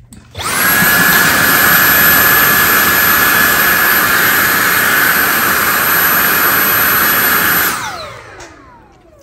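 Cordless handheld vacuum switching on and running steadily with a high whine, then switched off near the end, its motor winding down in a falling whine.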